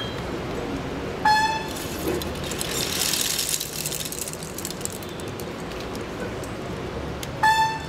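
Two short, loud horn-like toots, one about a second in and one near the end, over a steady background rumble.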